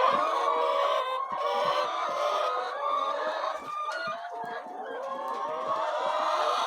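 A flock of chickens clucking and calling, many birds overlapping.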